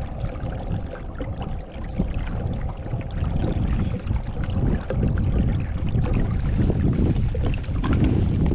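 Water washing along the hull of a kayak under way, with a low rumble that swells and fades unevenly every second or so.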